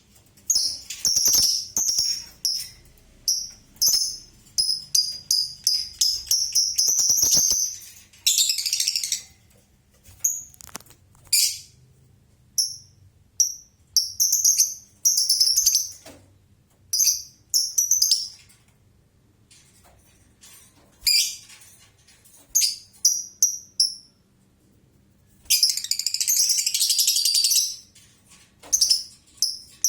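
Lovebird singing ngekek, its long rapid chattering trill: a fast string of high chirps for about eight seconds, then shorter bursts broken by brief pauses, and another dense run near the end.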